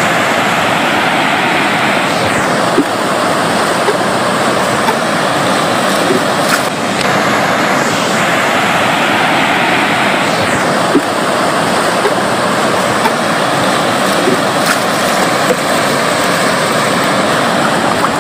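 Floodwater of the overflowing Wyra river rushing steadily and loudly.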